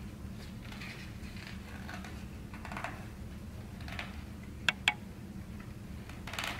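A hardcover picture book being handled and its page turned: soft paper rustles, two sharp clicks close together about two-thirds of the way through, and a louder rustle near the end as the page goes over.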